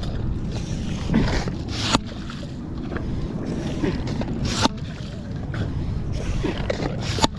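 Ghost-shrimp bait pump being worked in wet sand and mud: a rising wet sucking rush that ends in a sharp smack, three times about two and a half seconds apart, over a steady low rumble.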